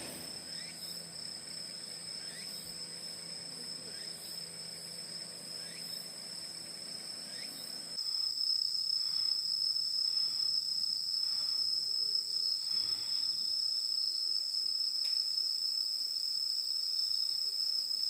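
Chorus of insects, crickets or similar, trilling steadily as two continuous high-pitched tones. It gets louder about eight seconds in, with a faint even pulsing.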